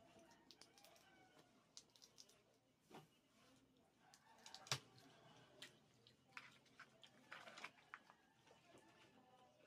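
Faint eating sounds at a meal of crab and shrimp eaten by hand: scattered small clicks and cracks of shells being broken and peeled, with quiet chewing. The sharpest crack comes a little under five seconds in.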